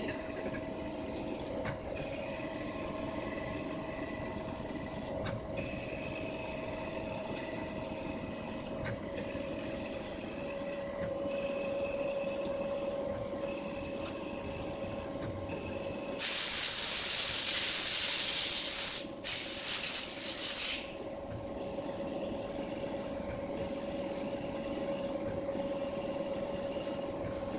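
CNC lathe running a turning cycle: a steady machine whine with short breaks every couple of seconds. About sixteen seconds in, a loud hiss comes in for about four seconds, with one brief break.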